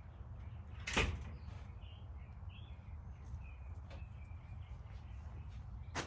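A sharp knock about a second in and a smaller one near the end, over a low steady rumble, with faint bird chirps in between.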